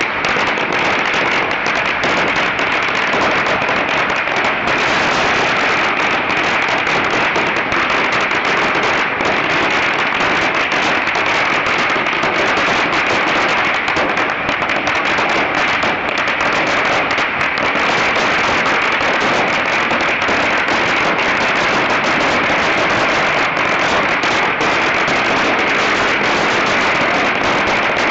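A long pagara, a string of firecrackers laid along the street, going off in a dense, unbroken crackle of rapid bangs at a steady loudness.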